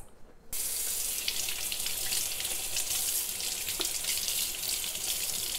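Kitchen faucet running steadily, water splashing over roots being rinsed by hand in the sink. The water starts about half a second in.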